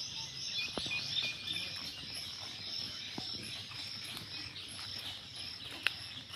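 Outdoor ambience of a steady high insect drone, with a bird chirping repeatedly over the first couple of seconds and a few faint clicks.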